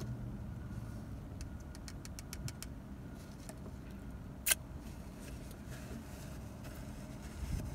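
Car engine idling: a steady low rumble heard inside the cabin. A few light clicks come about two seconds in, and one sharper click about four and a half seconds in.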